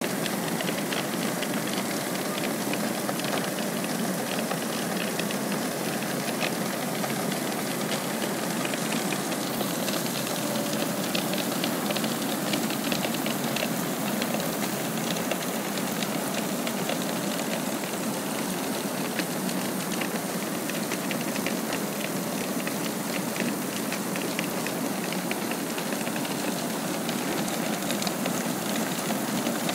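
Portable conveyor belt running loaded with 3/4-inch rock: a steady mechanical noise with a constant scatter of small clicks from the stones.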